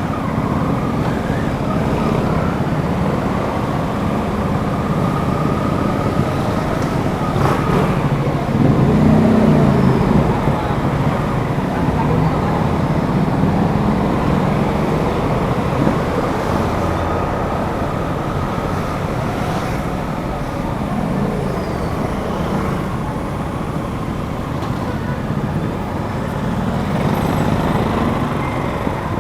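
Suzuki GSX-8S's 776 cc parallel-twin engine running as the motorcycle is ridden, with road noise. The engine note shifts in pitch throughout and gets louder for a couple of seconds about nine seconds in.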